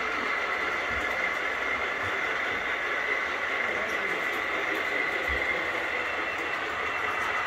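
Model trains running on the layout, a steady rolling sound that keeps up without a break.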